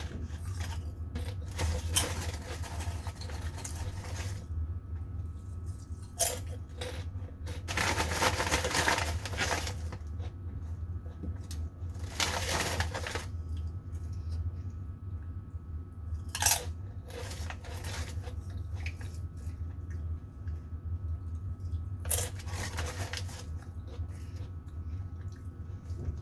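Crunchy potato snack being bitten and chewed close to the microphone, in separate crunching bursts every few seconds.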